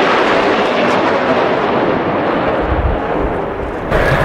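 Loud, steady jet roar from the twin General Electric F404 turbofans of a low-passing F/A-18D Hornet, its hiss easing as the jet moves past. Near the end the sound changes suddenly to a deeper rumble.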